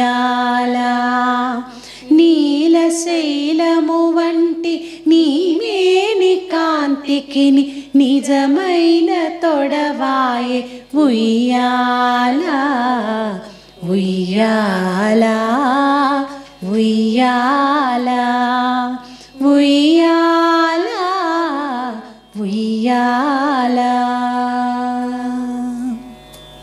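A solo voice singing a Carnatic melody in raga Madhyamavati, with long held notes and sliding ornaments. The phrases are separated by short breaths, and no clear words can be made out.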